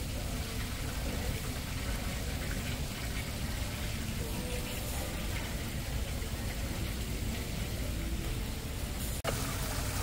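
Steady splash and rush of an indoor waterfall running over rocks into a pool. The sound breaks off for an instant about nine seconds in.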